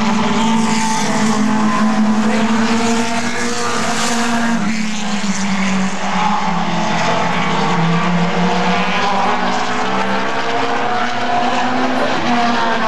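Several Super 4 late model stock cars racing on a short oval track, their engines running hard together, with pitch rising and falling as the cars work through the turns.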